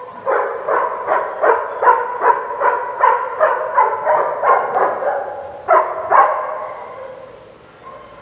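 A big dog barking over and over, about two to three barks a second, then two louder barks after a short pause, with the sound fading away afterwards.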